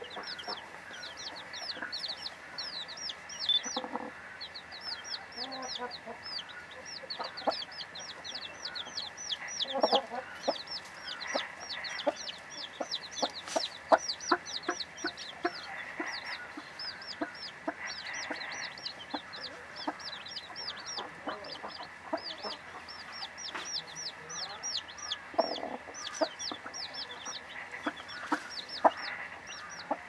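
Young chicks peeping rapidly and almost without pause, short high falling peeps, while the brooding white Leghorn hen gives a few low soft clucks. Scattered light taps run through it.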